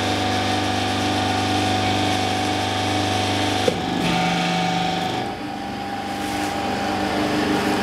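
Brick-forming press running with a steady machine hum. About three and a half seconds in, a sharp click comes as the low part of the hum cuts out and the machine's tone changes, as the pressing cycle moves on to releasing the formed brick.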